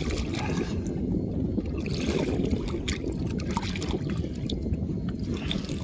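Steady wind noise on the microphone, with water splashing at the side of the boat where a redfish is being unhooked at the surface.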